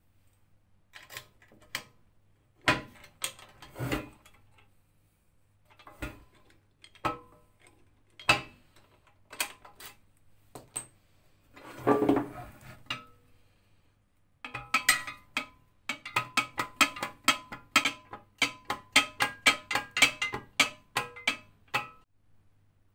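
Sheet-metal door and mail-slot flap of a painted metal post box being handled by hand: scattered metal clicks and knocks, then a quick run of sharp taps and clicks through the last third.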